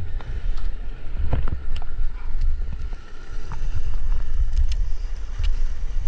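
Muffled low rumble of river water, swelling and dipping, with scattered small clicks and ticks, as heard by a camera held underwater during river spearfishing.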